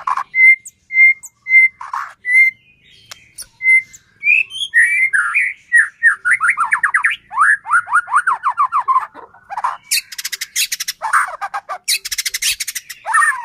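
White-rumped shama (murai batu) singing. It gives a few short, evenly spaced whistled notes, then a fast run of falling notes, then two bursts of harsh rattling chatter, the 'kretekan', about ten and twelve seconds in.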